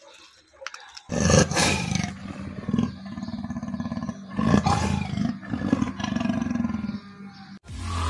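Leopard growling and roaring in a run of loud, rough calls that start about a second in and stop shortly before the end.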